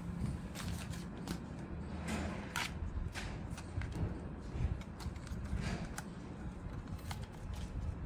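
Handling noise from a folded DJI Mini 4 Pro drone being turned over in the hands: scattered light plastic clicks and scrapes, busiest about two to three seconds in, over a steady low hum.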